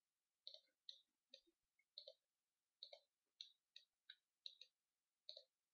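Faint computer mouse clicks, about a dozen at an irregular pace of roughly two a second, some in quick pairs, as points are picked on curves in a CAD program.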